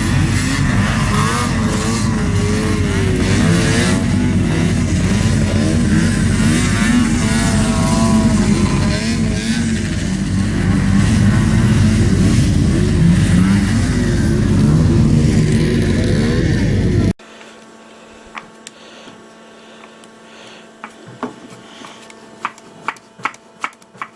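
Racing snowmobiles with vintage fan-cooled 340 two-stroke engines, several of them revving and passing with their pitch rising and falling. After about 17 s it cuts off suddenly to quiet, with a run of sharp clicks that come faster near the end.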